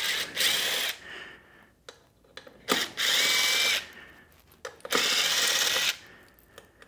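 Power drill with a 4 mm hex bit running in three short bursts of about a second each, backing out bolts on an electric moped's frame.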